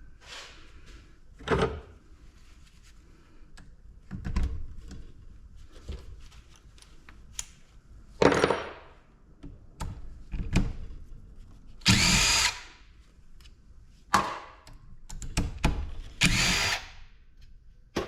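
Power drill running in short repeated bursts, some with a rising whine, while backing out the bolts of a scrap refrigeration compressor.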